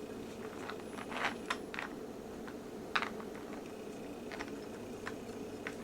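Scattered light clicks and clacks of toy trains being handled and knocked together, over a steady low room hum.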